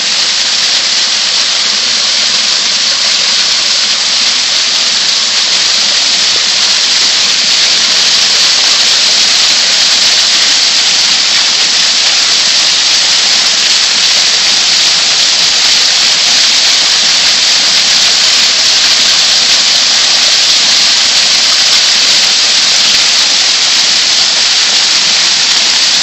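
Waterfall pouring down a rock face: a loud, steady rushing hiss of falling and splashing water that grows a little louder as it goes on.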